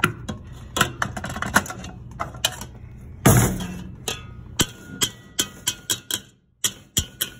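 Stainless-steel stand-mixer bowl and flat beater being handled: clicks and knocks, a louder clunk about three seconds in as the bowl comes off the mixer, then a run of sharp metal taps as the beater is worked over the bowl.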